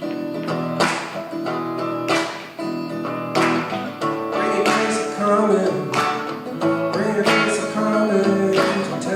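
Acoustic guitar strumming chords in a steady rhythm, about one stroke a second, in an instrumental passage of a song.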